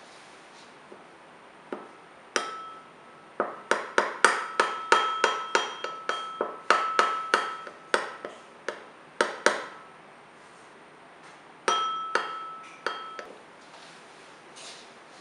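Metal teaspoon clinking against a small ceramic bowl while stirring gelatin into water. A run of ringing clinks at about three a second, a pause, then a few more.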